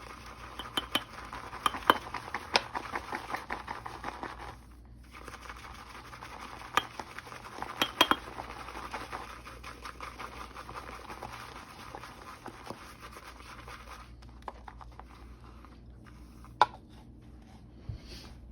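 Synthetic shaving brush whisking shave soap into a lather in a shave bowl: a busy wet swishing with quick clicks of the brush against the bowl. It pauses briefly about five seconds in, thins out in the second half, and there is one sharp knock near the end.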